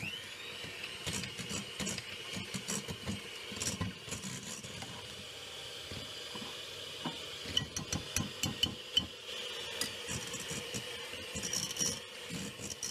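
Electric hand mixer running steadily with a high motor whine, its beaters whipping butter and custard cream and ticking against a glass bowl, with a run of sharper knocks in the second half.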